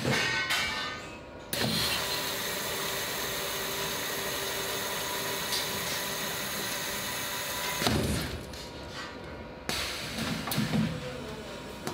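Ecofill HT1 aseptic bag filler working: a couple of mechanical clunks, then a steady hiss from the filling head that starts suddenly and runs about six seconds before cutting off with a thump, followed by quieter machine and handling noise.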